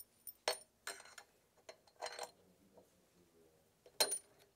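Sharp metallic clinks and knocks of steel suspension parts and a bolt being handled and fitted while a sway bar link is attached to a snowmobile's front A-arm: a few separate clicks about half a second, one and two seconds in, and a louder double knock near the end.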